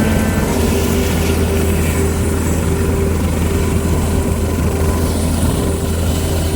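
Helicopter running with a steady, loud low drone.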